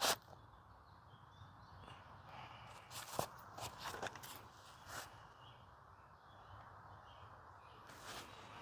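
Quiet outdoor campsite ambience with faint birds chirping. A sharp click at the very start, then a few light rustling steps about three to five seconds in.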